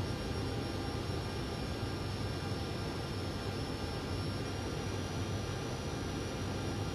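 Cockpit noise of a Cessna Citation Encore on short final: a steady hiss of airflow and its twin turbofan engines at approach power, with a faint steady high whine and a low hum underneath.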